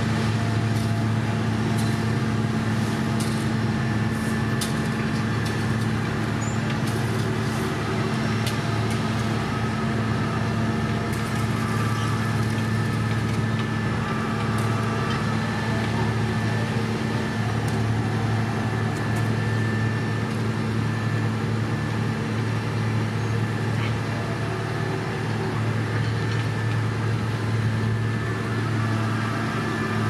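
Heavy diesel engines of a dump truck and an asphalt paver running at a steady, even drone while the truck's bed tips up to feed gravel into the paver. Light scattered clicks and rattles during the first third.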